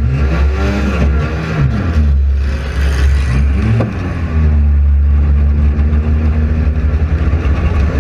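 Front-wheel-drive demolition derby car's engine revving up and down, its pitch rising and falling several times over a heavy low rumble, with a short sharp knock about four seconds in.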